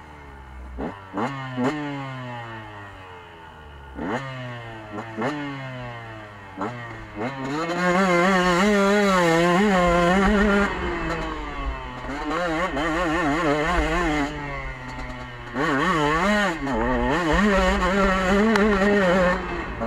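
KTM 125 two-stroke enduro motorcycle engine, heard from on the bike, accelerating hard and revving up through the gears several times in quick succession. From about eight seconds in it is held at high revs with a wavering note, eases off for a few seconds past the halfway mark, and pulls hard again near the end.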